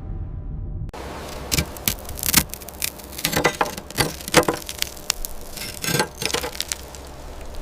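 Irregular sharp clicks and cracks over a steady hiss, starting suddenly about a second in.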